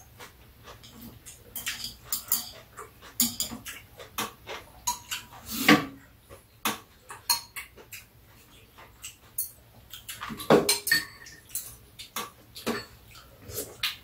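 Metal spoons and chopsticks clinking and scraping against ceramic bowls during a meal of soup. The clinks and taps come irregularly, and the loudest ones are about six and ten and a half seconds in.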